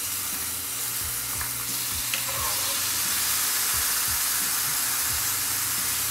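A hot skillet of ground beef taco mixture sizzling while a spoon scoops it out onto tortilla chips. The steady hiss gets louder about a second and a half in, with a light click of the spoon just after two seconds.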